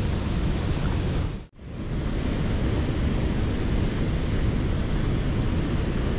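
Steady rush of a waterfall, with wind rumbling on the microphone. The sound cuts out for a moment about a second and a half in, then returns unchanged.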